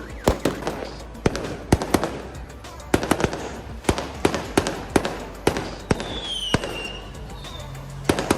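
Fireworks going off: a rapid, irregular string of sharp bangs, several a second.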